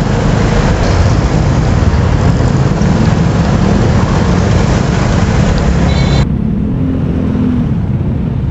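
Riding noise from a CFMOTO 300NK motorcycle on the move: heavy wind rush over the microphone mixed with the engine running on its stock exhaust. About six seconds in the sound abruptly turns duller.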